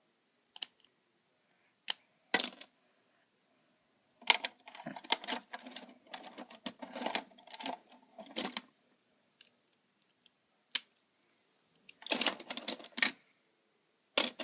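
Plastic Lego bricks clicking and clattering as they are handled and rummaged through: a few single clicks, then a longer run of rattling clatter, then a single click and a shorter clatter near the end.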